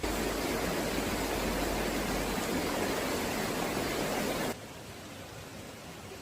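Rushing water from a river, a loud steady wash that cuts off suddenly about four and a half seconds in, leaving a fainter steady hiss.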